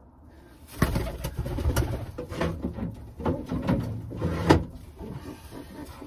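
Young racing pigeons in a loft: a pigeon beats its wings in several sharp flurries between about one and four and a half seconds in, among low pigeon sounds, before things settle.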